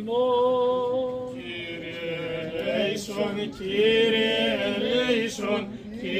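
Byzantine chant of an Orthodox vespers service: a male voice chanting long held notes with ornamented melodic turns.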